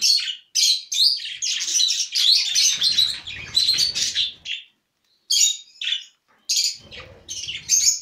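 Budgerigars chattering and squawking at close range in dense runs of short, high chirps. The calls break off for about half a second midway, then start again.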